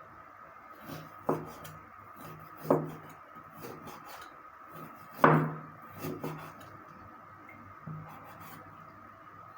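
Irregular knocks and scraping of kitchen utensils on wood as meat is handled for grinding, the loudest knock about five seconds in, over a faint steady hum.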